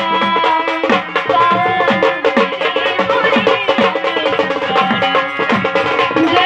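Instrumental passage of Marathi folk music: a hand drum plays a steady beat of falling-pitch bass strokes, about three a second, under a sustained melodic instrument.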